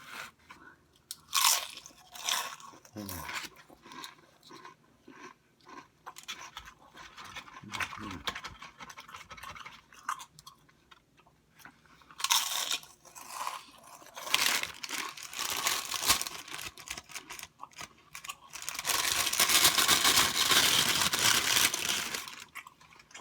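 Crinkling and clattering of plastic takeout containers and bag being handled, in short crackly bursts, with a longer, louder rustle near the end.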